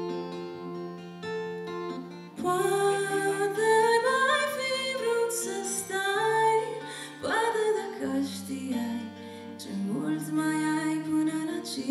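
A woman sings a folk song to her own picked electro-acoustic guitar. The guitar plays alone at first, and her voice comes in about two and a half seconds in.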